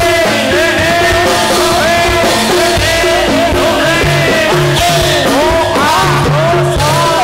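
Loud Javanese folk-dance accompaniment for a gedrug / Rampak Buto dance: steady drum strokes, short repeating metallic gamelan-style notes and a melody line sliding up and down above them. Low repeating notes join about four seconds in.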